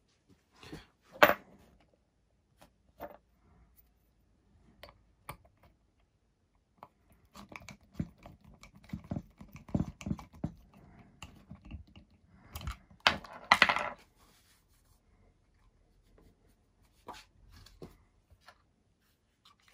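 Workbench handling sounds: small metal parts and a small screwdriver clicking and clattering, and the plastic housing of a 90 mm EDF fan unit being handled while the shaft adapter's grub screw is fitted. Scattered clicks, a sharp knock about a second in, and a busier run of knocks and scraping from about seven to fourteen seconds in.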